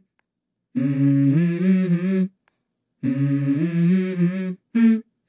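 Background music: a wordless vocal melody in two long phrases and a short one, with brief silent breaks between them.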